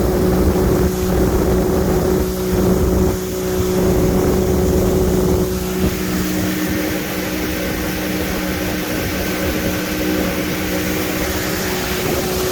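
Boat engine running steadily under way, a constant low hum with its overtones, with wind and water hiss over it.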